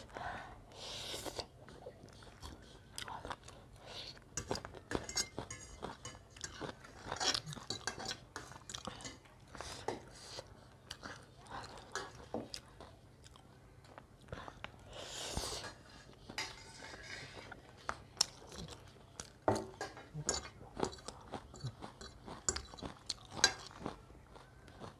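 A person chewing mouthfuls of buff chowmein noodles close to the microphone, with wet mouth sounds and many short clicks as a metal fork and spoon scrape and tap on a ceramic plate.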